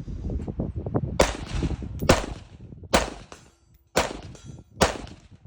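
Geissele Super Duty AR-15 rifle firing 5.56 rounds: five single shots about a second apart, starting about a second in, each followed by a brief ringing tail.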